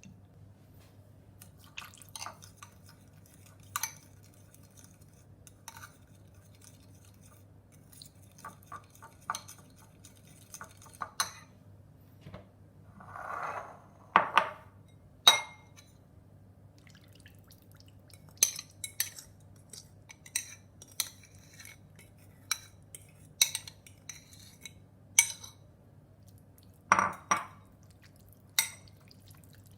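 Kitchen utensils clinking and tapping against dishes and glass in scattered, irregular strikes, with a brief softer rush of sound about 13 seconds in.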